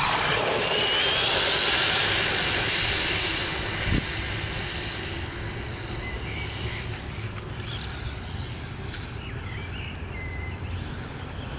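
Two 1/16-scale electric RC cars, one brushless and one brushed, launching together on wet asphalt. There is a sudden loud hiss of tyres and motor with a brief rising whine. It fades over about four seconds as they drive away, leaving a faint steady hiss.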